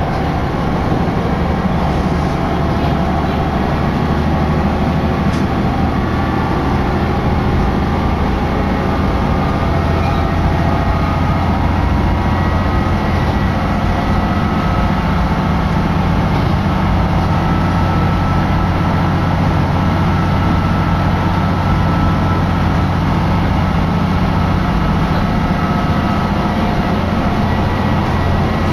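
Diesel railcar of the Hitachinaka Seaside Railway Minato Line running along the line, heard from inside the cabin: a steady engine drone and low rumble with faint steady whining tones above it.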